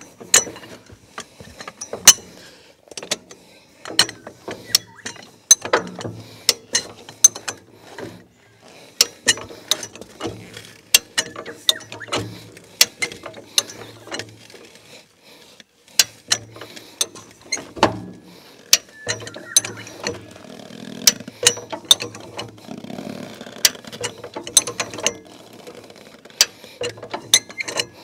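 High-lift jack being pumped, its ratchet mechanism clicking along the steel bar in a string of sharp metallic clicks, roughly one or two a second, with a short pause about halfway. The jack is pressing down on a tyre's sidewall to break the bead off the rim.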